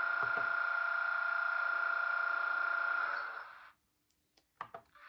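Model Vectron locomotive's sound decoder playing its air-compressor sound through the model's small onboard speaker: a steady hum with a held high tone, winding down and stopping a little after three seconds in. A couple of short knocks follow near the end.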